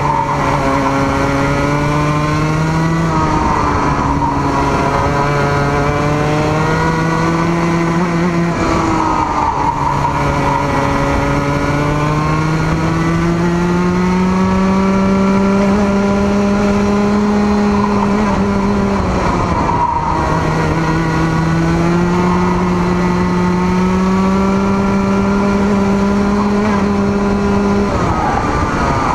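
Racing kart's engine at full throttle, heard from on board. Its note climbs slowly along the straights, then drops sharply about four times as the driver lifts for the corners.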